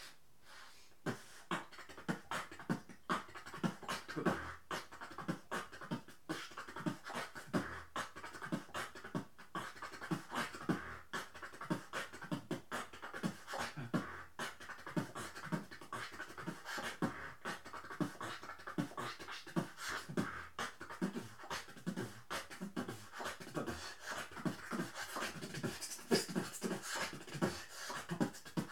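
Drumstep beatbox performed close into a handheld microphone: a fast, dense rhythm of mouth-made kick, snare and hi-hat sounds over a sustained tone underneath, starting about a second in.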